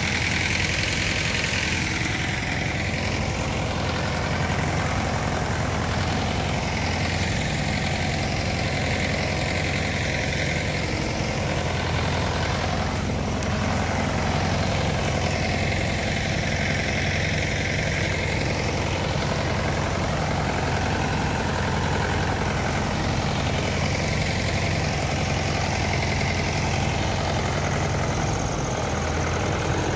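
Farm tractor's diesel engine running steadily, with no change in speed.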